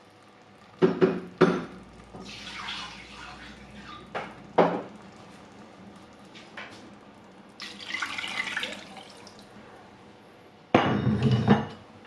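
Water swished round a vessel to rinse out the leftover masala, with a few sharp knocks of the vessel, then the rinse water poured into the pot of chicken in one loud splash near the end.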